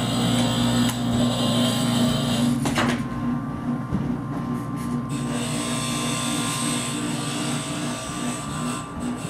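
Steady machine hum, with a higher hiss over it that drops away for about two seconds near the middle, and a light click about three seconds in.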